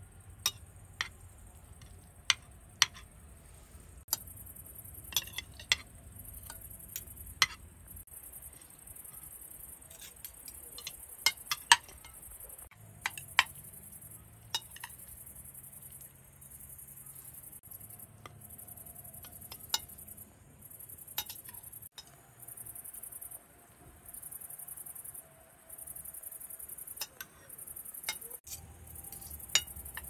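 Metal forks clinking against ceramic plates during a meal, in scattered sharp clinks at irregular intervals.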